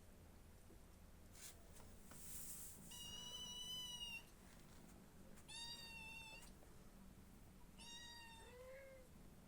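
Cat meowing three times, thin high-pitched calls about a second long each; the last one drops in pitch at its end. A brief soft rustle comes about two seconds in.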